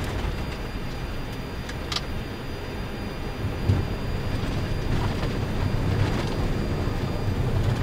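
Airbus A319 flight deck on touchdown and landing roll: a steady rumble of airflow and wheels on the runway that grows louder from about three and a half seconds in, with a short knock about two seconds in.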